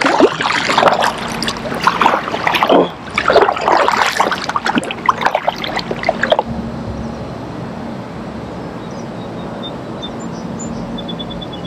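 Double-bladed kayak paddle dipping and splashing through calm water, several uneven strokes over the first six seconds. Then the paddling stops and only a quieter, steady background remains.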